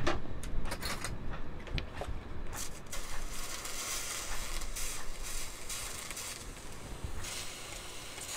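Water squirted from a spray bottle onto hot, freshly soldered silverware, hissing and sizzling as it quenches the joint. A few light clicks come in the first seconds.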